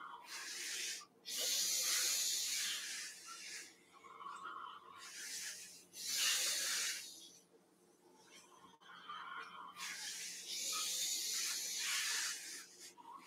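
A person breathing deeply and slowly close to the microphone: long, hissing rushes of air in and out, one every couple of seconds, with quiet gaps between. The breaths are paced to a slow qigong movement, in when rising and out when lowering.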